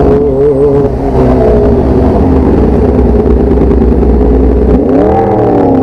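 Motorcycle engine running under way over a heavy low rumble; about five seconds in the engine pitch rises and dips as it revs.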